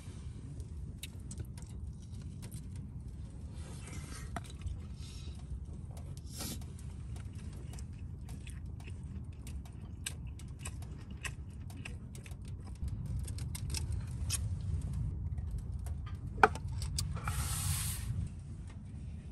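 Light metallic clinks and scrapes from a stainless steel bowl being handled as a chop is rubbed in dry seasoning, over a steady low rumble. There is one sharp knock about three-quarters of the way in.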